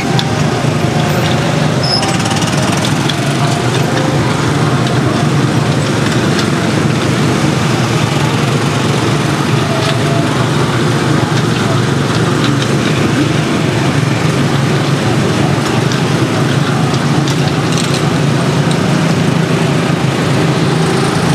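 Busy outdoor crowd chatter over a steady low mechanical hum, with no distinct events standing out.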